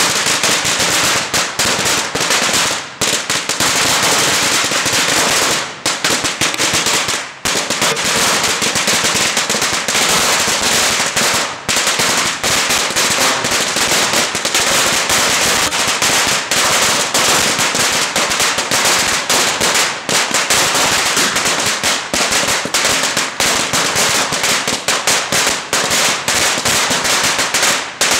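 A long hanging string of Chinese firecrackers going off in a rapid, continuous crackle of sharp bangs, too dense to count, with only a few momentary gaps.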